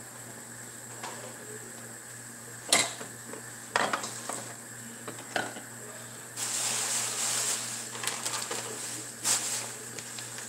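Cookware at the stove: pans, lids and utensils clanking and knocking a few times, with a hissing, sizzling stretch of about two seconds in the middle.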